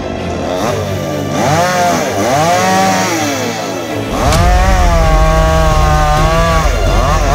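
Two-stroke petrol chainsaw revving up and down, then held at high revs as it cuts into a tree trunk from about four seconds in, with a brief drop and rise in revs near the end.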